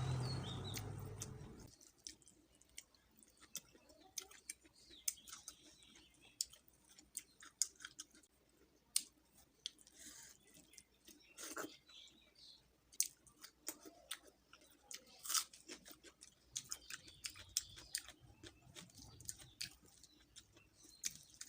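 Close-up chewing and smacking mouth sounds of someone eating rice and dal: many short, irregular clicks. A louder steady noise at the start fades out within about two seconds.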